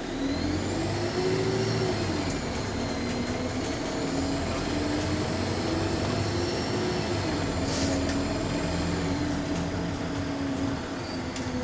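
Alexander Dennis Enviro400 MMC double-decker bus engine pulling, its note rising and easing off twice as the bus accelerates through the gears. Over it a high turbo whine rises and falls with the revs, a whine the uploader takes for a turbo leak.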